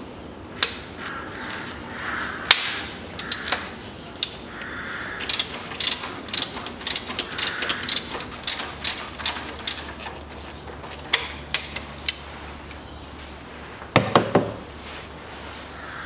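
Socket ratchet wrench clicking in quick runs while bolts are undone with a 19 mm socket, among a few sharp metal tool knocks. There is a louder clatter of metal near the end.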